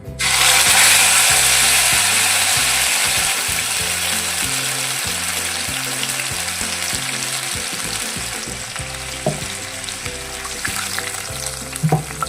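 Ground wet spice paste dropped into hot mustard oil in a kadai, sizzling loudly at once and slowly dying down as it fries. A couple of short knocks come later on.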